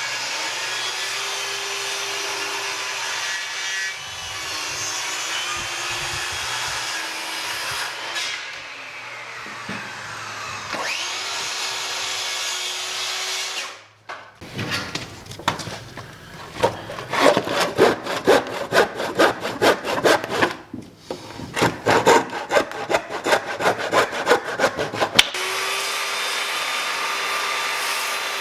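Wooden rafters being sawn to cut bird's mouth notches. A steady sawing sound with a held motor-like tone runs for about the first half and dips briefly and recovers midway. It gives way to about ten seconds of quick back-and-forth hand-saw strokes, and the steady sound returns near the end.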